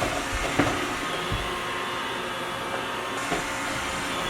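Steady whooshing background noise, like a fan or air conditioner running, with a few light knocks in the first second and a half.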